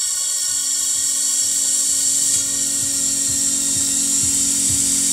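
Music played back from tape on an Akai GX-4000D reel-to-reel deck: held tones with a bright high whine, and a low tone and low pulses coming in about halfway through.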